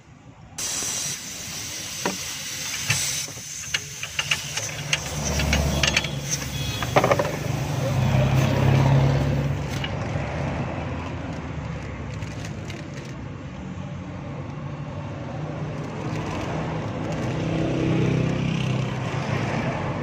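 Metal hand tools clinking and knocking against fittings as a ring spanner works a CNG line fitting under the bonnet, over a steady hiss that starts suddenly about half a second in. A low rumble builds from about five seconds in.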